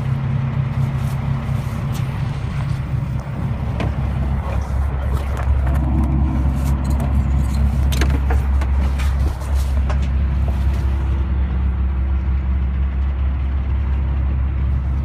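A boat's engine running steadily with a low drone, its note shifting and growing louder about five seconds in.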